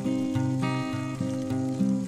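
Background music: a melody of held notes that change every half second or so, over a low bass line.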